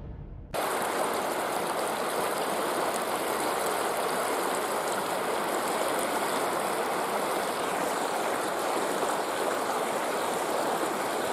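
Fast, shallow creek riffle rushing over rocks: a steady, even sound of flowing water that cuts in suddenly about half a second in.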